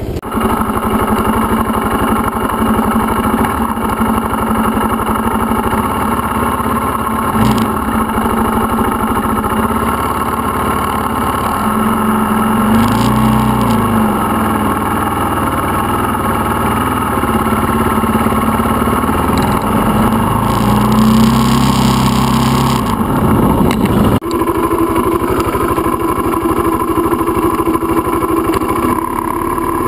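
Dirt bike engine running under way in first gear at low speed, heard from on the bike. Its note rises and falls twice, about a third of the way in and again about two-thirds in, with a brief dip a little later.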